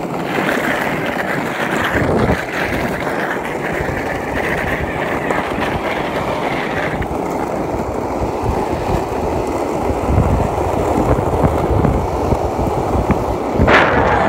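Loud, steady rushing and rumbling noise on the phone's microphone as it moves fast down the road, with a sharper loud burst near the end. The noise is harsh enough to be flagged as hard on headphones.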